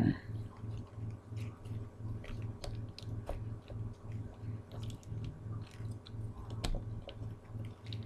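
Loose plastic Rubik's Cube pieces clicking and rattling as they are handled and fitted back into the cube, in small irregular clicks with a sharper knock at the start and again near the end. A low hum pulsing about three times a second runs underneath.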